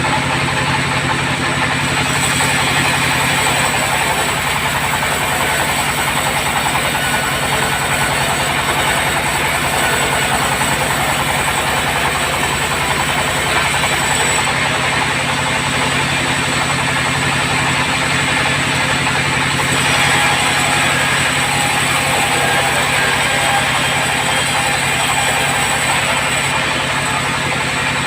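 Sawmill bandsaw running steadily with a low engine drone and the hiss of the blade cutting hard acacia wood. The cutting noise grows louder and eases off a few times.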